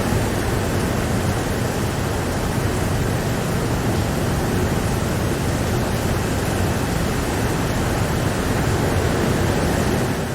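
Steady rain, an even rushing hiss with a deep rumble underneath, starting to fade out at the very end.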